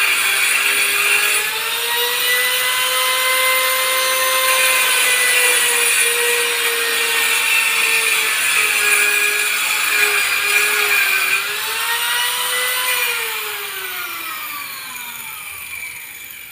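Electric hand planer running as it shaves the bottom edge of a wooden door that had swollen in the rainy season and was sticking. Its motor whine dips and recovers under load, and about three-quarters of the way through it is switched off and winds down, the pitch falling away and fading.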